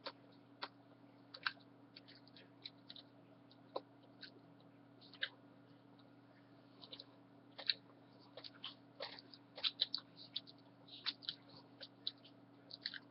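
Person chewing a sandwich: irregular small clicks and smacks of mouth sounds, busier in the second half, over a faint steady hum.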